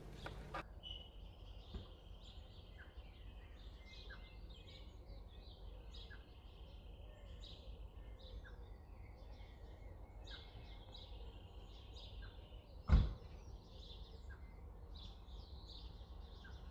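Birds chirping faintly and continuously, with repeated high chirps and short held notes. A single sharp knock about thirteen seconds in is the loudest sound.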